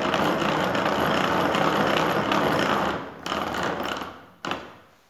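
Homemade hand-cranked willow shaver (shof) running, its geared steel rollers turning as a split willow rod is drawn through and shaved into flat strip by the knife. A steady, dense rattling noise for about three seconds, then a shorter run that fades away, with a single knock near the end.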